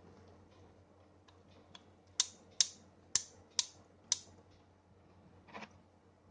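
Opened Taparia half-inch drive ratchet with its cover plate off: the spring-loaded pawl clicks over the gear teeth as the gear is turned. A few faint ticks lead into five sharp clicks about two a second, with a short scrape near the end.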